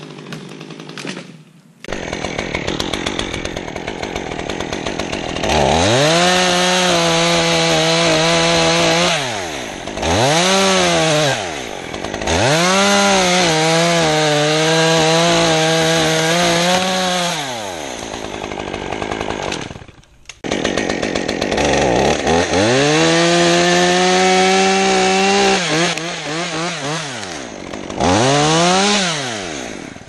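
Chainsaw revving up to full throttle and running steady, about five times, dropping back to idle between runs, while cutting through silver maple wood. There is a brief break in the sound near two-thirds of the way in.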